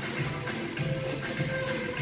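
Background music with a steady bass beat, a little under two beats a second.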